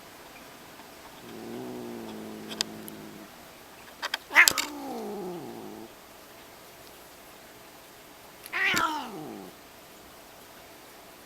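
Domestic cat yowling: a drawn-out low moan, then two loud cries that each slide down in pitch, about four and eight and a half seconds in.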